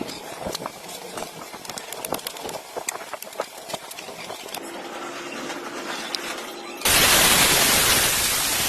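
Scattered clicks and taps, then a brief steady hum, then loud static hiss that cuts in suddenly about seven seconds in and is the loudest sound.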